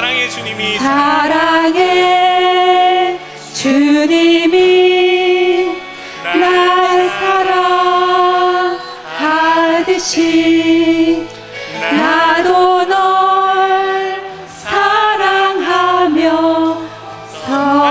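A church praise team of female and male voices singing a slow Korean worship song together into microphones, in phrases of held notes about three seconds long with short breaks between them, over a low steady accompaniment.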